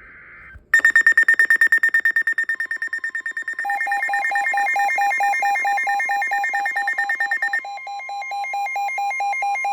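Emergency alert tones for a flash flood warning. A brief buzzy data burst is followed, under a second in, by a loud, rapidly pulsing high electronic beep. About 3.7 s in, a lower pulsing beep and a steady tone join it, and the high beep drops out near the end.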